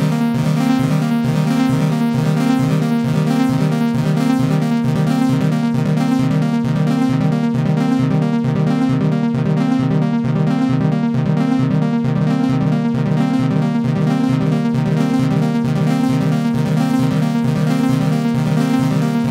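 Instrumental electronic music: a quick, even pulse of low synthesizer notes under held higher tones.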